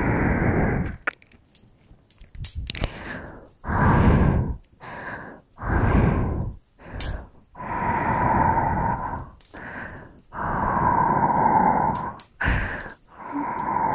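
ASMR breathing close to the microphone: a run of slow, heavy breaths and sighs, some long and some short, one after another.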